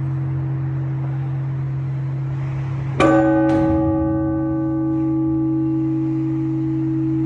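Orthodox church bell ringing for a service: a single clear stroke about three seconds in, its overtones ringing out and fading over a few seconds above the steady deep hum of the bells still sounding from earlier strokes.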